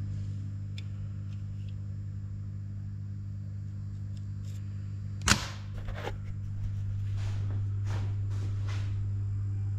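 A steady low electrical hum, with one sharp click about five seconds in and a few lighter clicks over the next few seconds as small tools and parts are handled.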